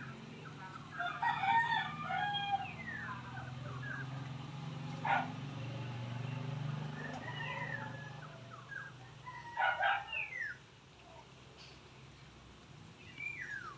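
Rooster crowing, once about a second in and again near ten seconds, with other birds calling in short falling chirps, over a low steady hum.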